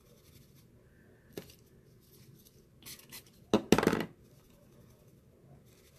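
Makeup brush being cleaned in a brush cleaner on a desk. There is a light click about a second and a half in, a couple of small knocks, then a short, loud clatter about three and a half seconds in.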